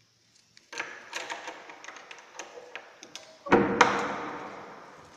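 A key unlocking a padlock on a metal door hasp, with irregular metal clicks and rattles. About three and a half seconds in, a loud metal clank rings out and fades over a second or so as the hasp and latch are worked open.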